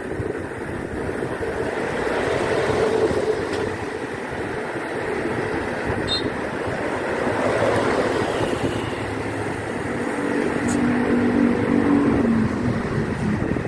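Wind rushing on the microphone while riding, over the rumble of road traffic on a highway flyover. A motor vehicle's engine drone stands out for a few seconds near the end.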